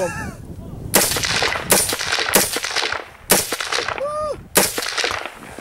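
AR-15 rifle firing five single shots in semi-automatic, spaced unevenly between about two-thirds of a second and a second and a quarter apart. Each shot is a sharp crack followed by a short echo.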